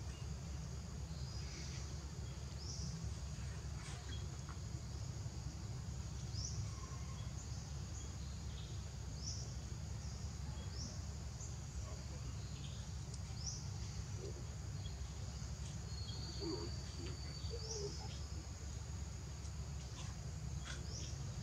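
Outdoor tree-canopy ambience: a steady low rumble under a constant high insect drone, with short high rising chirps repeating every second or two, and a few faint low calls in the later part.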